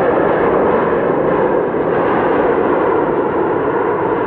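Airbus A330-343's Rolls-Royce Trent 700 jet engines roaring as the airliner rolls out along the runway just after touchdown, a loud, steady roar.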